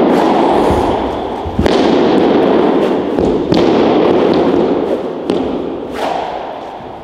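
Several sharp thuds, most likely a wushu staff and stamping feet striking the competition carpet, over a loud steady rushing noise that fades near the end.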